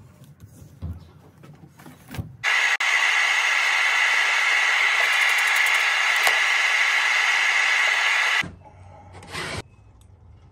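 Aerosol spray hissing steadily for about six seconds, starting and stopping abruptly, as a white coating is sprayed onto the sand mould cavity. Light knocks and scrapes come before it.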